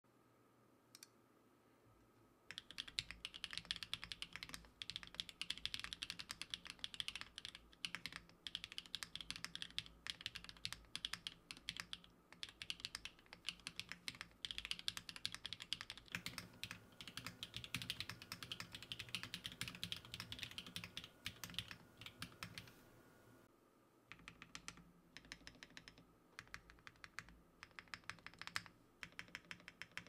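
Typing on a Neo Ergo split ergonomic mechanical keyboard in a plateless build with BSUN Kiki switches: a fast, steady stream of keystroke clicks that starts about two and a half seconds in, breaks off briefly near the end and then resumes.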